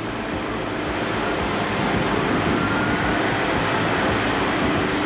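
Steady loud rush of fast river water pouring over falls, swelling slightly in the first second or so.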